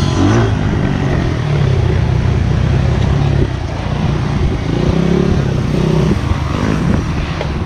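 Honda CRF80 pit bike's small four-stroke single-cylinder engine revving up and down under riding. The throttle eases off about three and a half seconds in, then the revs build again.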